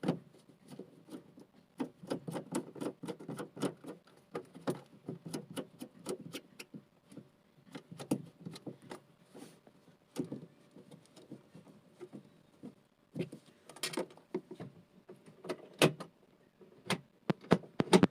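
Irregular clicks, taps and knocks of parts being handled and fitted as the cleaned drain valve of a Sharp twin-tub washing machine goes back in place, with a louder cluster of knocks near the end.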